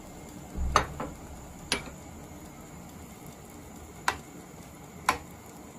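A ceramic spoon clinking against the side of an enamelled pot while stirring: five short sharp clinks, two close together about a second in, then single ones spread over the next few seconds.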